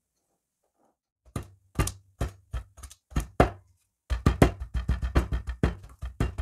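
Metal hammer knocking down onto kinetic sand on a tabletop. After about a second of quiet come a few spaced blows, then a fast run of about five knocks a second, over a low steady tone.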